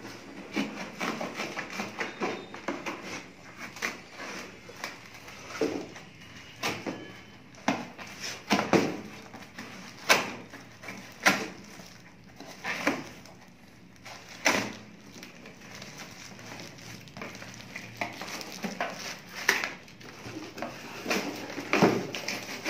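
Thin printed cardboard product box being cut and torn open by hand, with irregular sharp rips, crackles and knocks of cardboard, a few of them louder than the rest.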